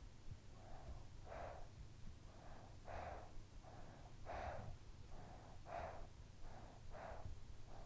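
A sleeping child breathing softly and evenly. There are about five breaths, each a quieter in-and-out pair, roughly every one and a half seconds.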